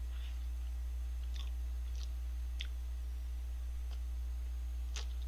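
A person biting and chewing a soft custard-cream bun: a few faint, scattered wet mouth clicks. A steady low hum runs underneath.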